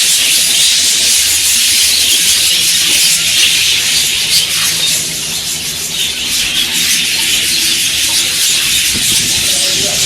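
A large flock of budgerigars chattering and twittering all at once, a dense continuous high-pitched din.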